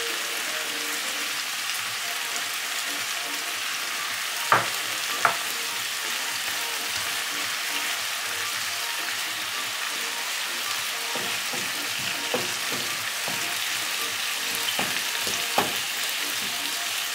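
Tomatoes, peppers and onion frying steadily in achiote oil in a frying pan. A wooden spoon stirs and knocks sharply against the pan twice about four to five seconds in, with a few lighter knocks later on.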